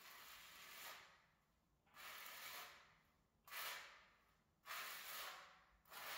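Notched trowel scraping and combing tile mortar across the floor substrate, in about five short strokes, each under a second.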